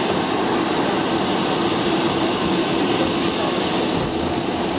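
Steady jet engine noise from an Air China Boeing 737 airliner on pushback, an even rush with a steady hum under it.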